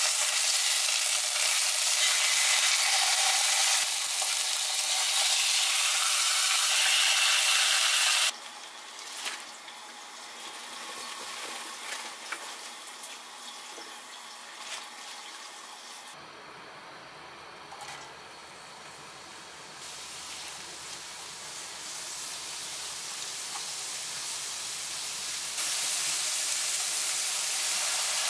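Salmon steak laid into hot oil in a stainless steel frying pan, sizzling loudly for about eight seconds, then cutting off abruptly. After that come quieter sounds of choy sum blanching in a pan of simmering water. Near the end, sliced green onions fry in oil and the sizzle comes back loud.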